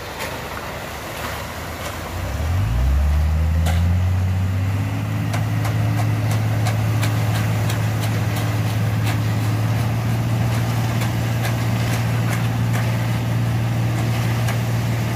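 An engine speeds up starting about two seconds in and then runs steadily at the higher speed. Over it come irregular scrapes and clinks of hoes working through fresh concrete and gravel.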